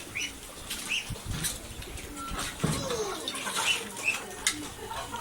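Poultry in a pen: scattered short chirps and calls, one of them a falling call about halfway through, mixed with wing flapping and sharp clicks.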